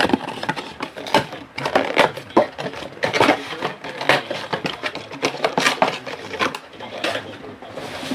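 Rapid, irregular crinkling, tearing and clicking of trading-card packaging being handled and opened: shrink-wrap, cardboard box and foil packs.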